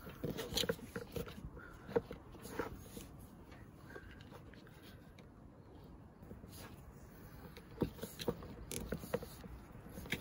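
Faint rustling with scattered small clicks and taps as solar-panel cables and their plastic inline connectors are handled and moved about.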